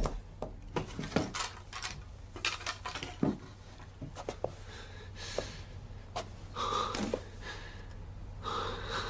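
A man panting heavily, with a run of sharp clicks and knocks in the first few seconds as objects are handled at a hiding place.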